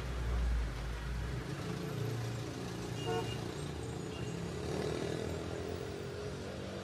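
City street traffic: vehicles including a bus rumbling past, heaviest in the first second and a half, under a steady urban hum. A brief pitched toot sounds about three seconds in.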